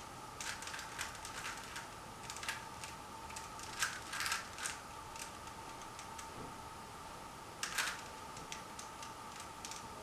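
3x3 Rubik's cube being turned by hand: plastic layers clicking and clattering in irregular bursts of turns, busiest around four seconds in and again just before eight seconds.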